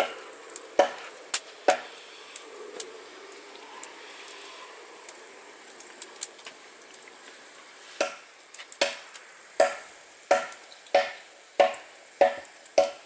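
Axe chopping wood: a few scattered blows, then a steady run of blows about one and a half a second from about eight seconds in.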